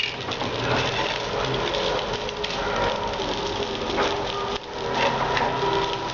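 Noodles and vegetables sizzling in a hot frying pan, with a spatula scraping and clicking against the pan as they are tossed.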